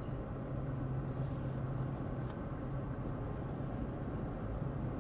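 Steady engine and road noise inside a moving car's cabin: a low rumble with a constant low hum.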